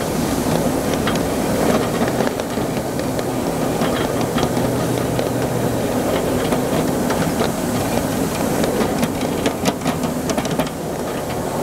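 Miniature live-steam train running on its track: a steady rumble of wheels on the rails with irregular clicking and ticking, which gets busier in the last few seconds.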